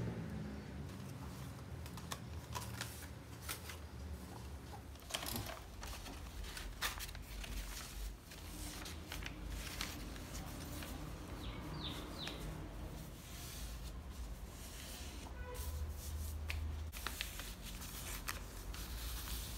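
Brown kraft paper being handled and folded by gloved hands: irregular rustles and crinkles with scattered light taps on a table.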